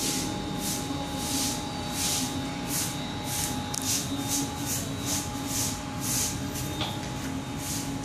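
Brushless motors of an X8 coaxial octocopter spinning its propellers at low throttle while it sits on the ground: a steady hum with a faint whine, under a hiss that swells about two or three times a second.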